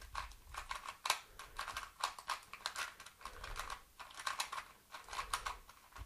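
YJ Yupo 2x2 speedcube being turned by hand for its first turns: quick runs of light plastic clicks and clacks as its layers turn.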